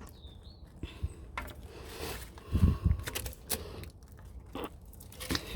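Scattered clicks and knocks of a stiff plastic filler hose being handled and pushed toward a diesel heater tank's filler, with a few duller thumps in the middle.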